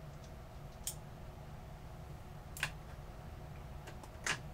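Three short, sharp clicks of small hard objects being handled, about a second and a half to two seconds apart, the last the loudest, over a steady low hum.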